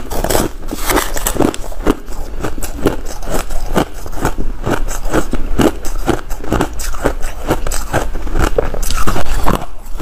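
Close-miked crunching of soft white frost ice being bitten and chewed, a steady run of crisp crunches about three a second, mixed with a metal spoon scraping through the ice in a plastic tub.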